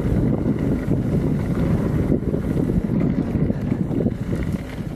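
Wind buffeting the microphone over the rumble and rattle of a mountain bike rolling down a dirt trail at speed.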